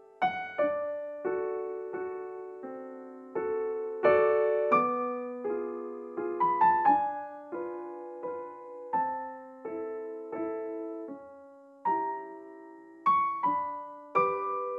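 Background music: a slow piano melody of single notes and occasional chords, each struck and left to ring and fade.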